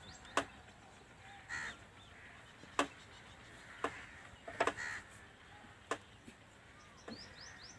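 About six sharp, short knocks at irregular intervals, with birds calling faintly in between.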